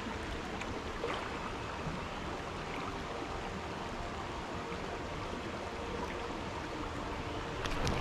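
Creek water rushing steadily over a shallow, rocky riffle, with a few faint clicks near the end.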